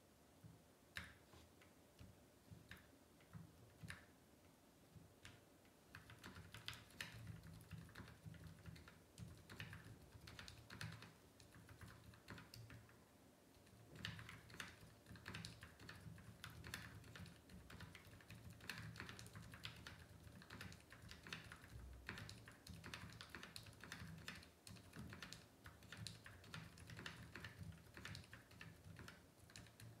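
Mechanical keyboard with Gateron Ink switches and GMK keycaps being typed on, the keystrokes very quiet and muted because the switches are heavily over-lubricated with Krytox grease. A few scattered keypresses give way to steady typing about six seconds in, with a short pause near the middle.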